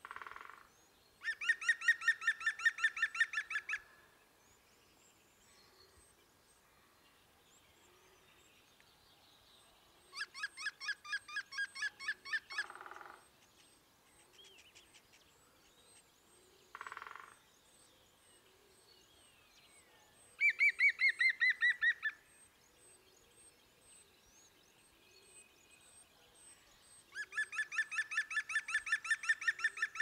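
European green woodpecker giving its yaffle: four laughing series of rapid ringing notes, about five or six a second, each lasting two to three seconds and spaced several seconds apart. A few short hoarse calls fall between the series.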